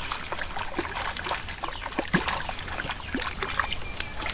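A hooked carp splashing at the water's surface in a run of short irregular splashes, over the steady high chirring of crickets.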